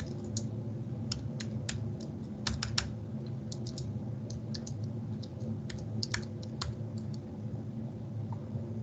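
Typing on a computer keyboard: irregular keystrokes in short runs with pauses between them, over a steady low hum.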